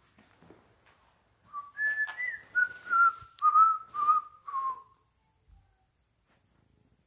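A man whistling a short tune of about eight notes, which jumps up at first and then steps down in pitch, lasting about three seconds.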